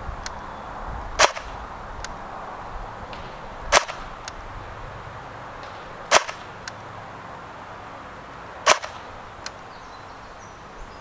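Airsoft L86 LSW electric rifle (AEG) firing four single shots of 0.28 g BBs, about two and a half seconds apart. A fainter tick follows most of the shots.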